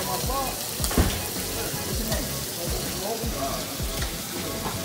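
Chicken and shrimp sizzling in hot steel woks as they are stirred, with one sharp clank about a second in. Music with a steady beat plays under it.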